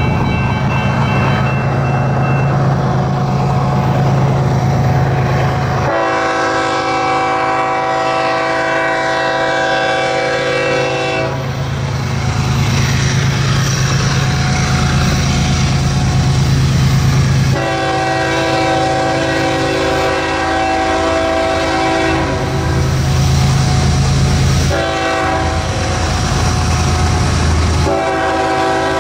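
Approaching diesel freight locomotive's air horn sounding the grade-crossing pattern: two long blasts, a short one, and the start of a final long one near the end. Between and under the blasts there is a low steady rumble.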